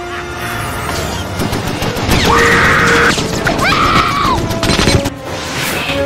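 Action-film soundtrack: orchestral score over explosions and crashing impacts, with two long high cries of alarm in the middle.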